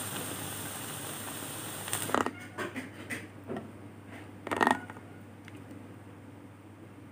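Bananas sizzling as they deep-fry in hot oil; about two seconds in this stops and a spoon scrapes and knocks against a pan of thick curry several times, the loudest knock a little past halfway.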